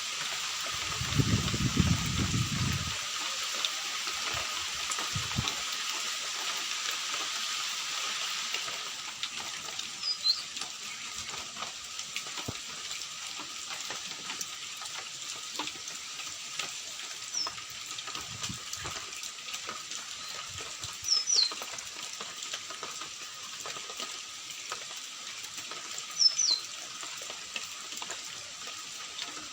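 Steady rain hiss that eases after about eight seconds, with a bird giving short high chirps several times. A brief low rumble comes about a second in.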